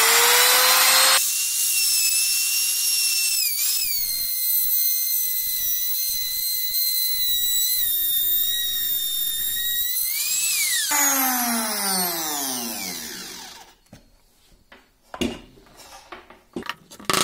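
Makita 3709 trim router cutting a groove in pine with a template guide: it comes up to speed with a rising whine, runs at a steady high whine for about ten seconds, dipping briefly under load, then is switched off and winds down with a falling whine. A few light knocks follow near the end.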